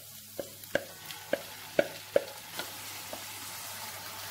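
A wooden spoon knocking several times against a blender jug as tomato and garlic purée is scraped out into a pan, over the steady sizzle of ground meat frying. The knocks come in the first two and a half seconds; after that only the sizzle goes on.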